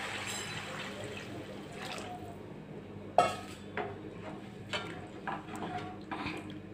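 Hot water poured from a steel vessel into a metal kadai of tomato-onion masala, a steady splashing pour for about the first two seconds. Then a steel ladle stirs the curry, knocking against the pan several times, the loudest knock about three seconds in.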